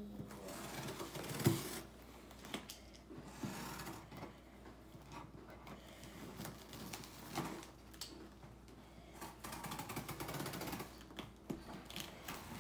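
A box cutter scraping and slicing through the packing tape and cardboard of a shipping box, in uneven stretches of rapid scratchy clicking, with a sharper knock about one and a half seconds in.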